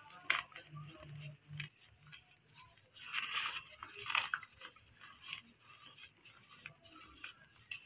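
Lumps of white cement being crushed and crumbled between fingers: faint, irregular crisp crunches, the loudest cluster about three to four seconds in, as powder and crumbs fall into loose cement powder.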